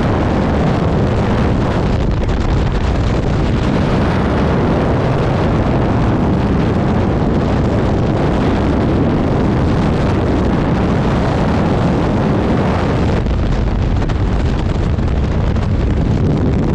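Steady, loud rush of freefall wind buffeting the camera microphone of a skydiver falling at terminal speed.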